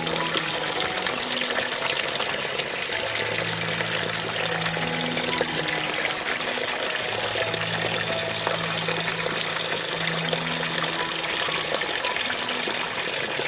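Water pouring and splashing steadily, with soft background music of long held low notes.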